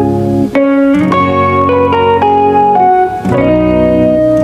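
Background music: an instrumental track led by plucked guitar, with a bass line.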